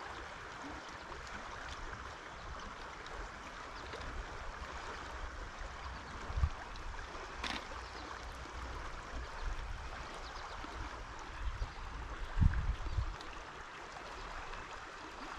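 Steady rush of flowing river water with a low rumble underneath, broken by a couple of short dull thumps about six and twelve seconds in.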